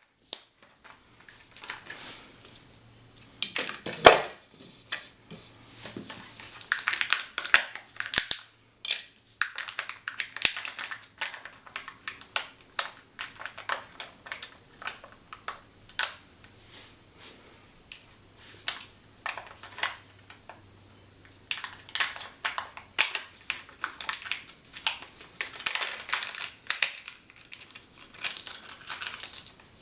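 Foil wrapper of a Kinder Surprise chocolate egg crinkling and tearing as it is peeled off by hand, with the chocolate shell cracking as it is broken open. Irregular crackles and crunches, the loudest about four seconds in.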